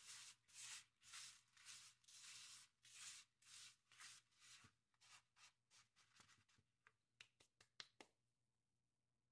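Faint rustling of breadcrumbs being patted and smoothed flat by hand in a paper plate, about two strokes a second, thinning to a few light taps about six seconds in and stopping near the end.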